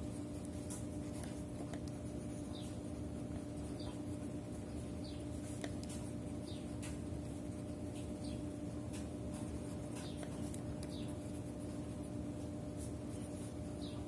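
Pen writing on lined notebook paper: a run of short stroke sounds as the words are written, over a steady low hum.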